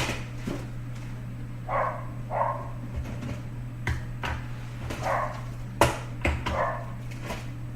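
A dog barking several short times, over a steady low electrical hum, with a few sharp clicks.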